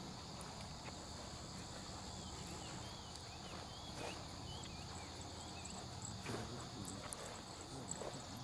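Insects in the grass trilling steadily, with a bird giving a run of short chirps for a few seconds midway and a few light clicks.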